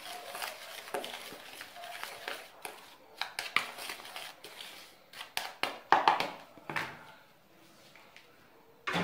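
Dry cornmeal being mixed by hand with seasoning and salt in a bowl: irregular rustling, scraping and light knocks, with a few louder knocks about six seconds in before it goes quiet.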